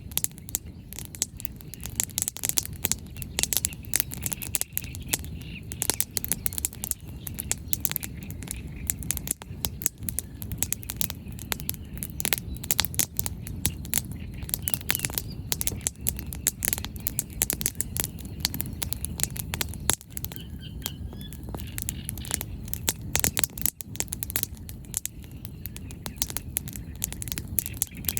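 Wood fire crackling: dense, irregular pops and snaps of burning firewood over a low steady rumble.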